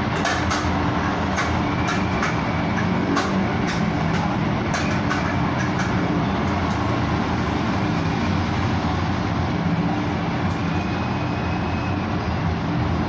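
Steady street traffic noise with a vehicle engine running low, and a few short clicks in the first five seconds or so.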